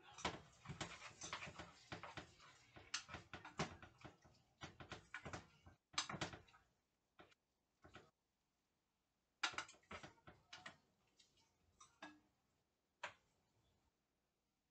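Kitchen utensils and cookware clattering at the stove as they are handled: a dense run of clicks and knocks, a pause of a few seconds, another short cluster, then one last knock.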